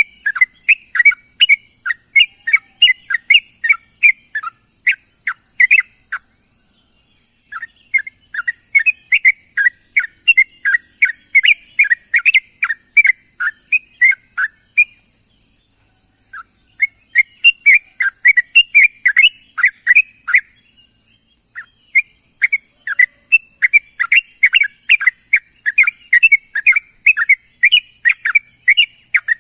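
Yellow-vented bulbul (trucuk) calling in bouts of quick, bubbling chirps of several seconds each, with short pauses between bouts, over a steady high-pitched hiss.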